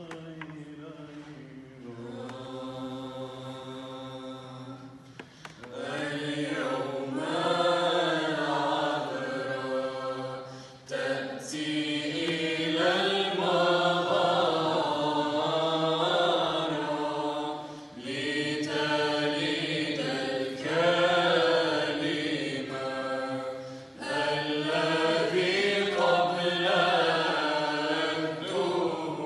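Youth choir singing Arabic Byzantine chant unaccompanied: a melody over a low held drone note. The singing turns fuller and louder about five seconds in and pauses briefly between phrases.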